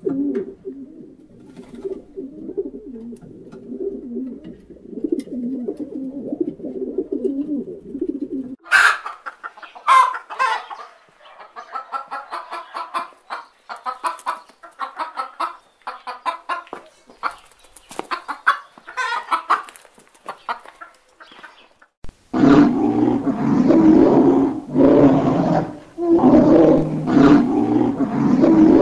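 Rock pigeons cooing for about the first nine seconds, then hens clucking and cackling. From about 22 seconds in, a bear gives a series of loud growling roars, about one a second.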